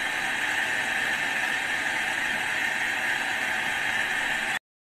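Handheld gas brazing torch burning with a steady hiss, its flame on a copper tube joint of an air conditioner; the sound cuts off suddenly near the end.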